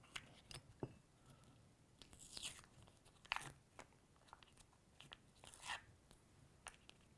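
Faint clicks and short scrapes as a small bottle of Dave's Flexcement head cement is opened and handled, the sharpest click about three seconds in.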